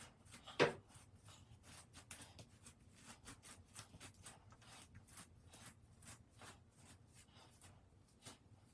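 Hair being worked by hand, a faint irregular scratchy rustle of fingers or a brush through hair, with one sharper click under a second in.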